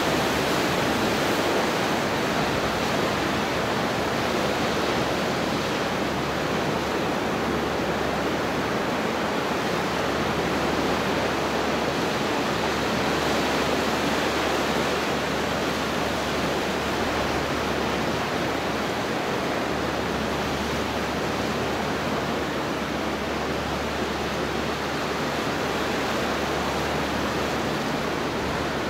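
Pacific surf washing over rocks and through a narrow rocky channel: a steady rushing noise with little rise and fall.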